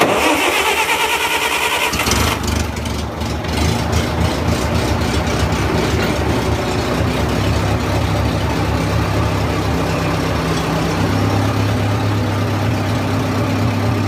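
Cold start of a 1970s Bobcat skid steer's Wisconsin four-cylinder gasoline engine, choke pulled, after a month unused: the starter cranks for about two seconds, then the engine catches and runs on steadily.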